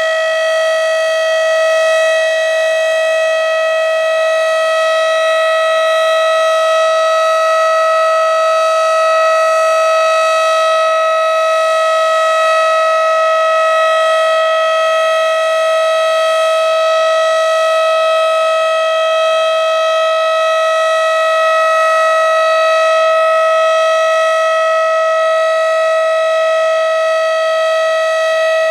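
Federal Signal Model 5B electromechanical warning siren sounding the steady Alert signal: one loud tone held at a constant pitch, with no rise or fall.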